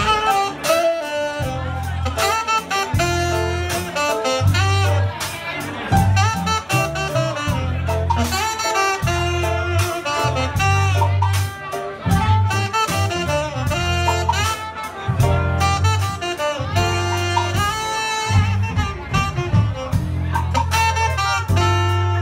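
Live funk band playing a tune: saxophone and trumpet play melodic horn lines over a pulsing electric bass riff and drums.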